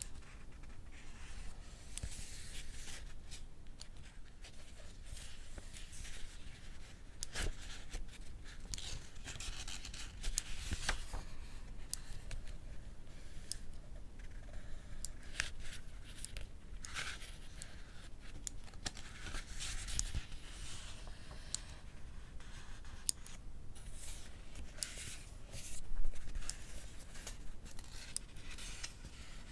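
Pages of a paperback book being turned, with repeated short clicks of a mechanical pencil pushing out its lead. A louder rustle comes about 26 seconds in.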